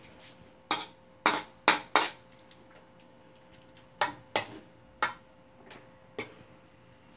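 Metal spoon clinking and scraping against a metal wok while stirring squid rings in broth: about nine sharp clinks, four in quick succession in the first two seconds, then more spaced out from about four seconds in.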